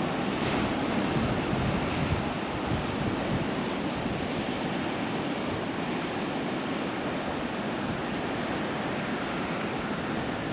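Sea surf washing against rocks, a steady rush. Wind buffets the microphone, more strongly in the first two or three seconds.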